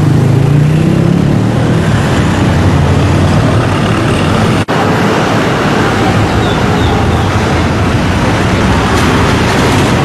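Loud, steady road-traffic noise from a busy street, broken by a brief dropout about five seconds in.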